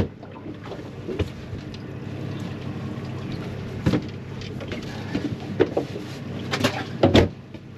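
Fishing boat's engine running with a steady low hum, with several sharp knocks and clatters on deck, the loudest a little after seven seconds.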